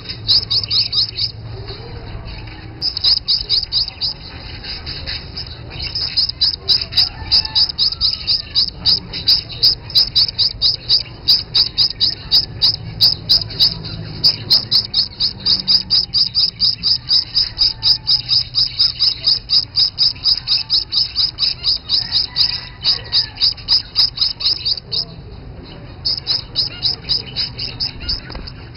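Gouldian finch fledglings at the nest giving rapid, evenly repeated high chirping calls, about three a second, the begging calls of young birds, with a short break about two seconds in and again near the end. Fainter, softer finch calls sound underneath.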